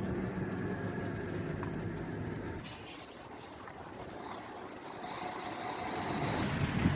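A motor vehicle's engine running steadily, fading out about three seconds in, with traffic noise building again near the end.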